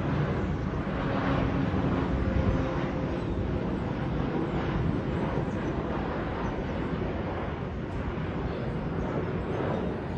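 Jet airliner engine noise: a steady rush with a faint steady tone in it, slowly fading.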